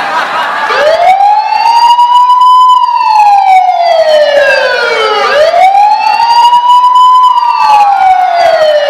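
Wailing siren sound effect, loud: it rises in pitch for about two seconds, then falls slowly for about two and a half, and goes round twice.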